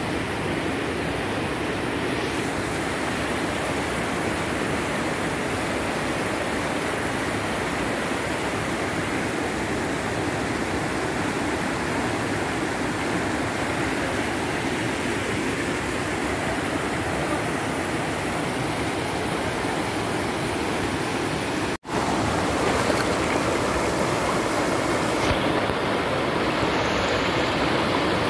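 Shallow stream rushing over rocks and small rapids: a steady, even rush of water. About three quarters of the way through it drops out for a split second and comes back slightly louder.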